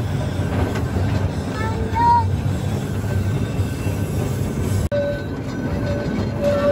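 Narrow-gauge passenger train running along its track: a continuous low rumble and clatter of the wheels and carriages. After a brief dropout just before five seconds in, a thin high squeal comes and goes.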